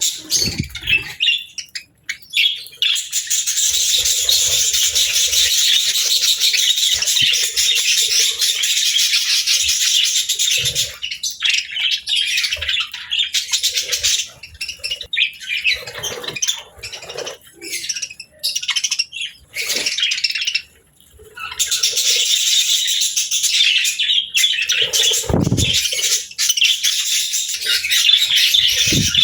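Pet budgerigars warbling and chattering in a dense, continuous stream of fast chirps, thinning out in the middle and building up again later. There is a dull bump near the end.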